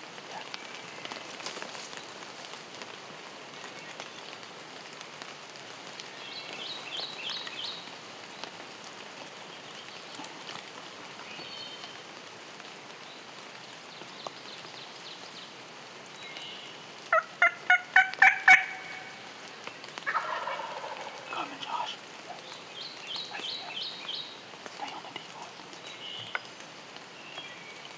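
Wild turkey gobbler gobbling loudly and close, one rapid rattling gobble about seventeen seconds in, followed right after by a softer, falling gobble. Fainter, higher calls come a couple of times earlier and later.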